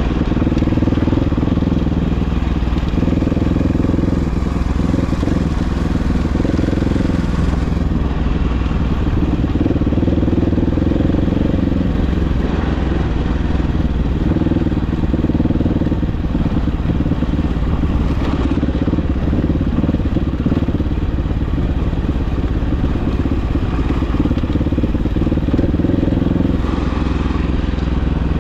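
Engine of an off-road vehicle running under way, loud and continuous, its note shifting up and down in steps every few seconds.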